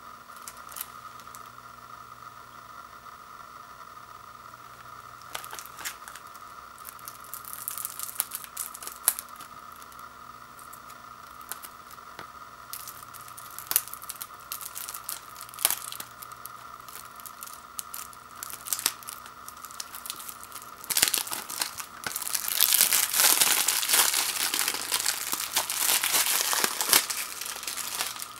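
Plastic shrink wrap on a disc case being picked at and torn open, with scattered crackles and small tears. About 21 seconds in, it turns into a long, loud stretch of crinkling as the wrap is peeled off.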